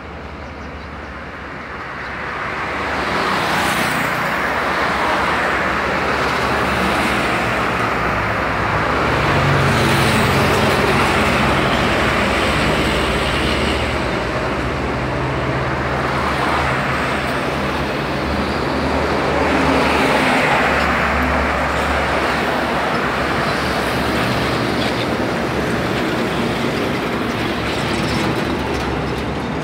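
Heavy diesel trucks and a bus driving past one after another: a steady wash of engine and tyre noise. It builds from about two seconds in and swells twice, about a third and two-thirds of the way through, as vehicles go by close.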